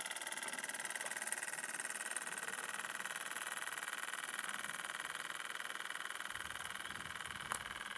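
Small single-acting single-cylinder Microcosm steam engine running steadily, a fast even beat with a steady whine above it. A single sharp click near the end.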